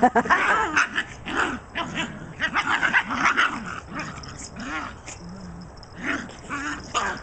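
Shiba Inu puppies calling as they play-fight: a quick run of short, high, pitch-bending calls through the first three seconds, fewer after, then another cluster near the end.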